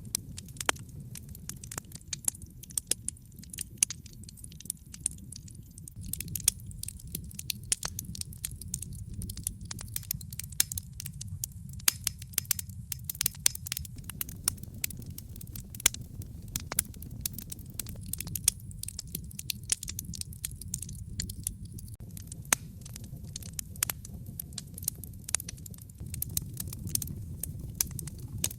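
Wood fire crackling in a fireplace: frequent, irregular sharp pops and snaps over a low, steady rumble of the flames.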